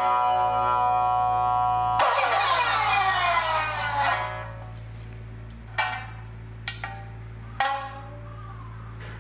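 Shamisen played solo: a long held note, then a newly struck note whose pitch slides down over about two seconds, then three short, quieter plucks.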